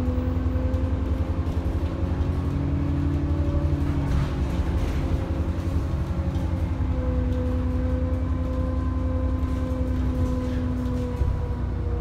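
ADL Enviro 400 E40D double-decker bus under way, heard from inside the passenger saloon: a deep engine rumble with a steady turbocharger whine on top, its pitch shifting slightly as the bus changes speed.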